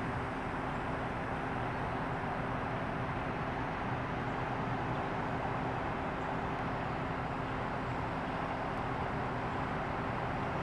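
Steady traffic noise: a constant low rumble and hiss of vehicles, with a faint steady hum running under it.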